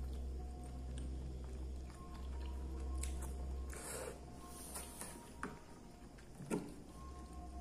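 Close-miked eating: slurping and chewing instant noodle soup, then a couple of short clicks of a metal fork and spoon set down in a plastic plate near the end.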